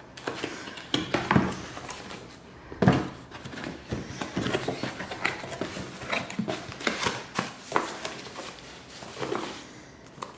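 Cardboard box and paper packaging being opened and handled: irregular rustling, scraping and tapping as the flaps are opened and paper inserts pulled out, with a couple of sharper knocks in the first few seconds.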